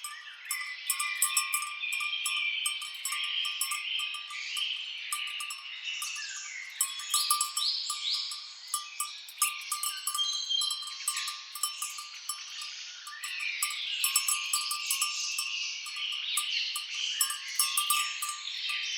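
Many birds chirping and singing over one another, with the clinking of cowbells on grazing cattle.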